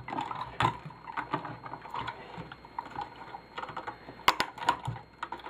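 Irregular light clicks and rattles of small parts as wires are pulled off a turntable's internals, with one sharper click about four seconds in.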